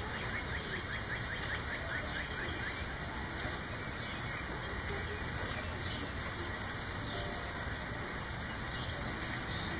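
Steady rain falling with drops pattering, and a rapid run of short chirps in the first three seconds.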